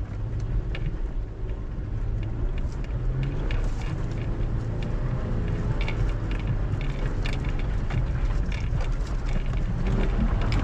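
Jeep engine running at low speed over a rough off-road trail, a steady low rumble. Scattered short clicks and knocks come from the body and tyres.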